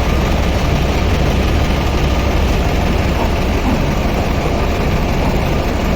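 Lathe running steadily with a loud, even low hum and machine noise.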